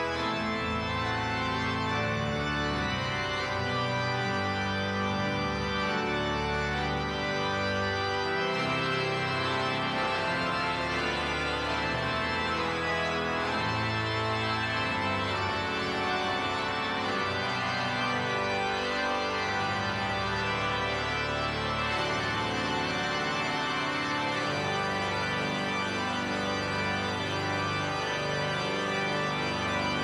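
Pipe organ playing a loud, full passage of sustained chords over low pedal notes.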